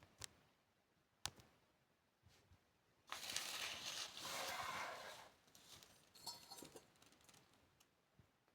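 Quiet handling noises: two sharp clicks, then about two seconds of noisy rustling about three seconds in, followed by a few light knocks.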